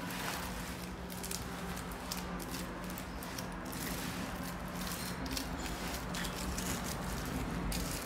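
Rustling and crinkling of plastic wrappers and cloth as ratcheting wrenches in a fabric tool roll are handled, over a steady low hum.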